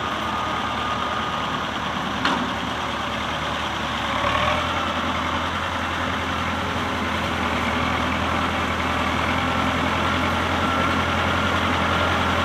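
Tractor engine running steadily, growing a little louder and deeper about four and a half seconds in.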